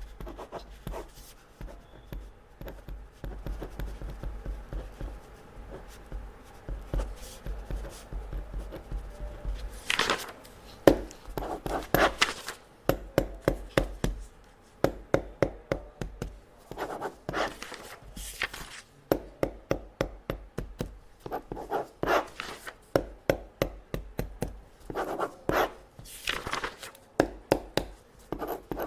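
Pen marking test papers: short, quick strokes on paper in bursts, like ticks and crosses being scratched on, with a few longer scratching swishes now and then.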